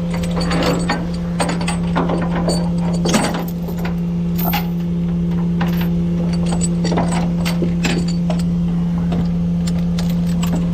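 Repeated metal clinks and clanks of tie-down chains and hardware being handled, over a steady engine idle.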